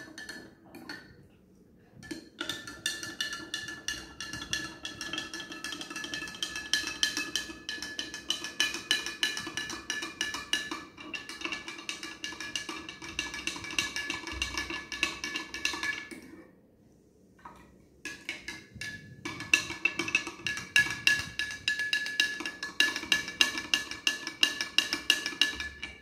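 Metal spoon stirring salt into a glass of water, clinking rapidly against the glass so that it rings. The stirring stops for a moment twice, about a second in and again about two-thirds of the way through.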